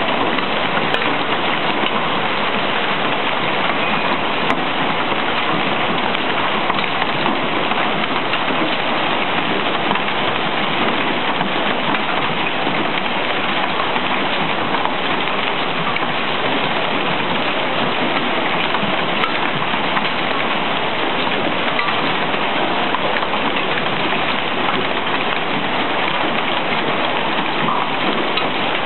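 Hail and rain pelting down steadily in a dense, even hiss and patter on the street and parked cars.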